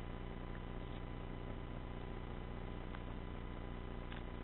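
Steady low electrical hum with a hiss behind it, broken by a few faint ticks.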